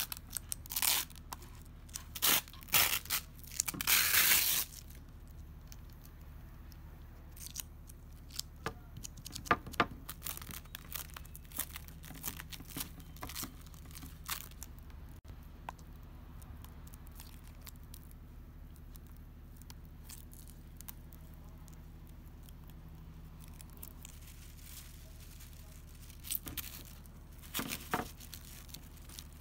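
Protective backing film being peeled off carbon-fibre prepreg, then plastic film crinkled over the layup by gloved hands. There is a run of loud tearing rustles in the first few seconds, sparse quiet rustles after that, and a few crinkles again near the end.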